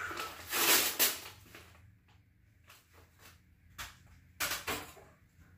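Brown packing paper and shredded paper filler rustling and crinkling as a wrapped bundle is pulled open by hand. The loudest rustling comes about half a second to a second in, followed by quieter scattered crinkles and a few short rustles around four to five seconds in.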